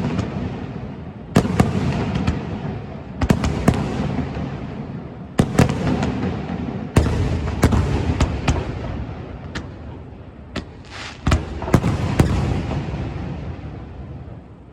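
Aerial fireworks shells bursting in a continuous barrage: about a dozen sharp bangs, some in quick clusters, each trailing off in a long low echo.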